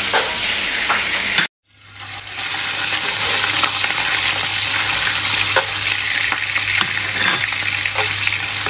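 Meat frying in hot oil in a pan, a steady sizzle with a spatula stirring and scraping in short clicks. The sound cuts out for a moment about a second and a half in, then comes back with a low steady hum beneath the sizzle.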